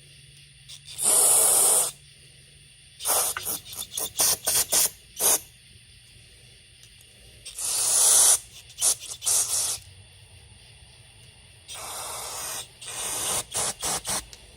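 Aerosol carburetor cleaner spraying in hissing blasts into the ports and passages of a chainsaw carburetor. It comes as three sprays of about a second each, and each is followed by a run of quick short squirts.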